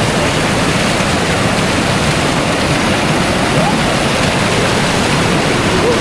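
Rushing river water, a loud steady rush with no breaks.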